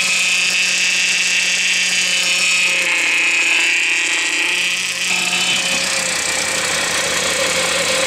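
Volkswagen 2.5-litre five-cylinder engine idling while its power steering pump whines loudly, a steady high whine that wavers in pitch in the middle, the so-called 'Chewbacca' noise. The pump is sucking air through a cracked power steering suction hose, and the fluid is frothy.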